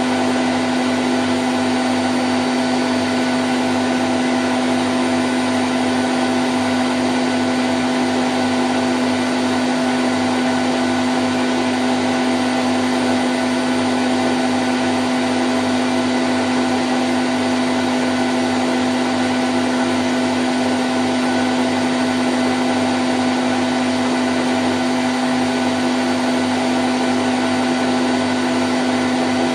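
Candy Grand O' F106 washing machine on its spin cycle at 1000 rpm: a steady, loud hum and whir of the drum and motor with a whooshing noise, unchanging throughout.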